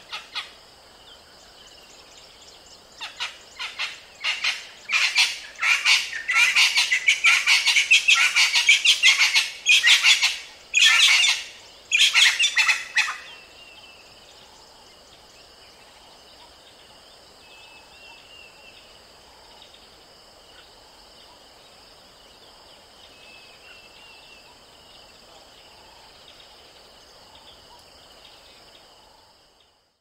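Crested francolin (crested spurfowl) calling: a loud, rapid run of rattling repeated notes begins about three seconds in and stops a little before the halfway point. Faint chirps over a steady background hiss follow.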